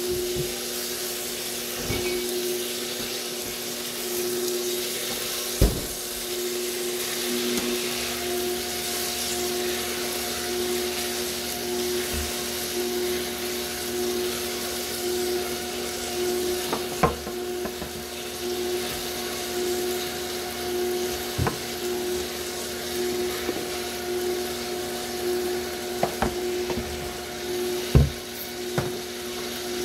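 KitchenAid multicooker's stir tower running with a steady motor hum as its paddle sweeps diced onion, meat and green pepper through hot oil, which sizzles throughout. A few sharp knocks come through, the loudest near the end.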